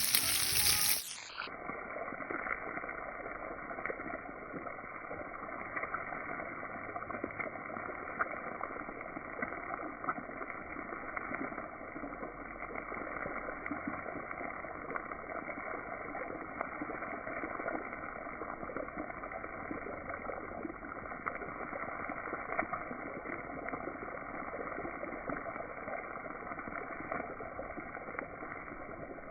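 Steady, muffled rushing of water, with faint small ticks through it, after a brief loud burst at the very start.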